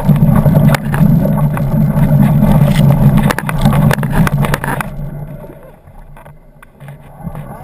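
Off-road motorcycle engine running under throttle on a rough trail, with rattles and knocks from the rocky ground. About five seconds in the engine eases off and quietens, then picks up again near the end.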